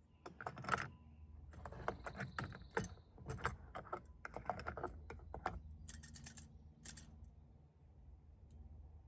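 Fishing lures clicking and rattling against a tackle box as they are handled and pushed into its compartments, in quick clusters of clicks that thin out about seven seconds in.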